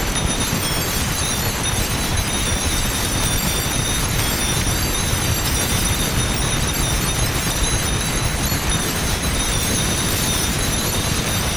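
Several M61 Vulcan six-barrel rotary cannons firing in one unbroken, steady rapid roar, with spent shell casings clinking and ringing onto concrete and metal.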